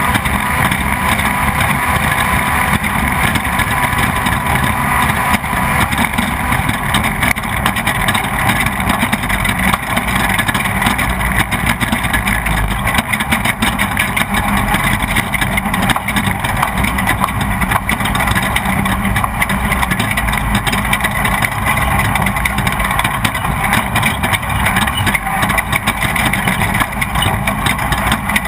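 Off-road race vehicle heard from on board, its engine running hard under load, with a steady rush of noise and constant small knocks and rattles.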